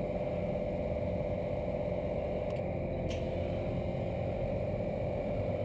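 ARB twin 12 V on-board air compressor running steadily with a constant motor drone, kicked in to build pressure while a tire is being filled. Two faint clicks come about two and a half and three seconds in.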